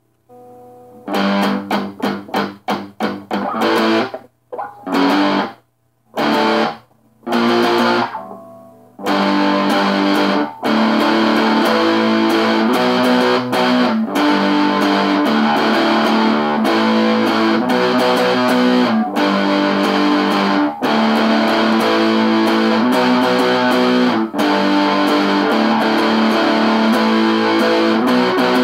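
Electric guitar (a Squier Stratocaster tuned to drop D) played through an amp with some distortion. For the first several seconds it plays short, stabbed chords separated by brief silences, then from about nine seconds in it settles into continuous strummed chords.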